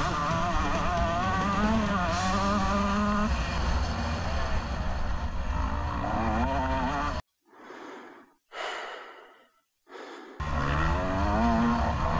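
Motocross bike engines heard from a rider's helmet camera, revving up and down as the throttle opens and closes. A little past the middle the engine sound cuts out for about three seconds, leaving only two brief soft sounds, then comes back revving.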